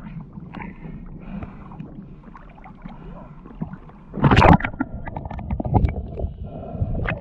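Water lapping and sloshing around a swimmer's camera at the surface, then a loud splash about four seconds in as the camera goes under, followed by muffled underwater gurgling with small clicks.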